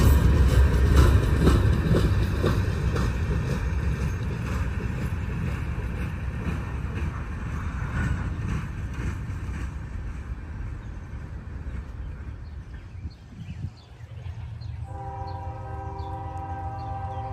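Freight train cars rolling past, their wheels clicking over rail joints in a regular rhythm, fading as the train moves away. Near the end, a locomotive horn sounds one steady, held chord of several notes.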